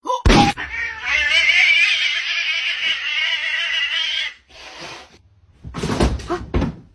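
A cat yowling at a dog: one long, wavering, angry call lasting about three and a half seconds, typical of a defensive warning. A short sharp sound comes just before it, and a few brief louder sounds come near the end.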